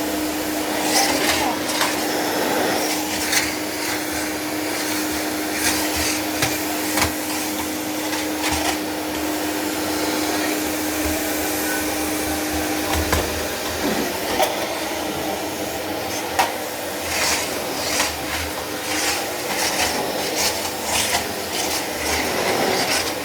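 1979 Miele S 224 canister vacuum cleaner running steadily, its motor working again on replacement carbon brushes. A steady tone in its sound stops about halfway through, and short knocks and clicks from the machine being handled come and go.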